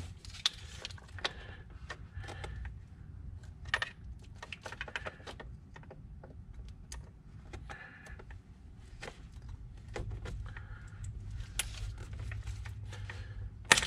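Irregular clicks, ticks and small plastic rattles of a hand tool prying at plastic wiring-harness clips in an engine bay, ending in one loud sharp snap near the end.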